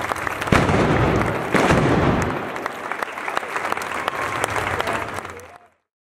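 Crowd applauding, with two loud bangs about half a second and a second and a half in; the sound stops abruptly near the end.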